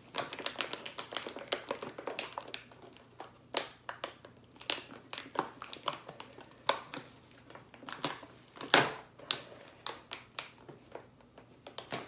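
Paper coffee bag crinkling and crackling in the hands as it is handled and folded, a run of irregular crackles with the loudest one about nine seconds in.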